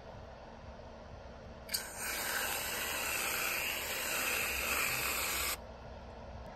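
Aerosol can of whipped cream spraying: a steady hiss that starts about two seconds in, runs for about four seconds and cuts off suddenly as the nozzle is released.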